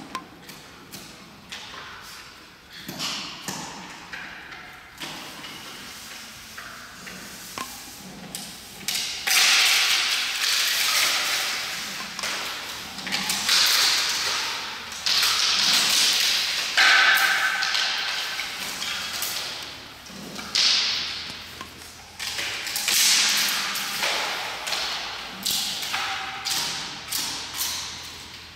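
Giant panda biting and chewing bamboo stalks: repeated crunching and splintering cracks as the stalks are bitten through, louder and denser from about a third of the way in.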